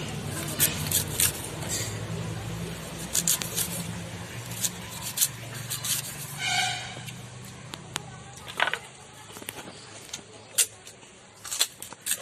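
Raw carrot being cut on a boti, a fixed upright kitchen blade, with many short crisp cracks as pieces are pushed through and snap off. A low steady hum underneath fades out about two-thirds of the way through.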